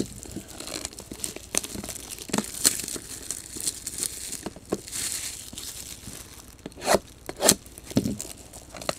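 Foil trading-card pack wrappers crinkling and tearing as hands open packs and handle the cards, with a few louder sharp snaps about seven seconds in.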